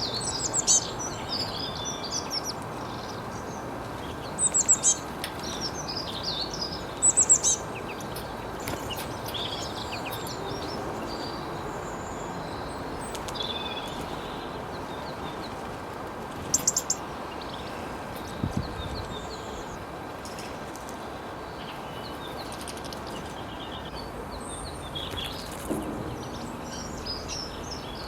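Several wild birds chirping and trilling in short bursts, with the loudest bursts around a second in, near 5 and 7 seconds, and again near 17 seconds, over a steady outdoor background hiss.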